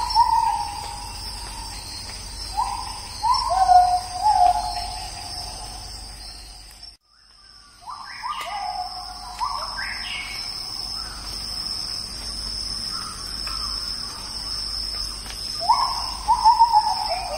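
Birds calling in bouts of clear whistled notes, each phrase stepping down in pitch, over a steady high-pitched drone of insects. The sound briefly cuts out about seven seconds in.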